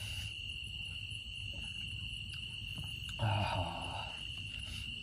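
Crickets chirping in a steady high drone. A short muffled noise comes a little past three seconds in.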